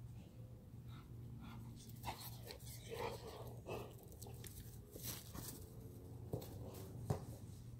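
Chesapeake Bay Retriever puppy panting and mouthing as it comes up close, about three to four seconds in, with a few light knocks. Faint, over a low steady hum.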